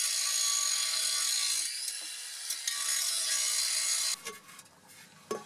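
Makita angle grinder cutting into a steel exhaust pipe, throwing sparks. It runs as a steady high grinding and stops suddenly about four seconds in.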